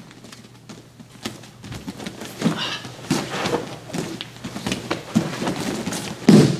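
Bare feet shuffling and stepping on judo mats and heavy gi cloth rustling as two grapplers move and grip up, with many soft scattered knocks. A louder thud comes near the end.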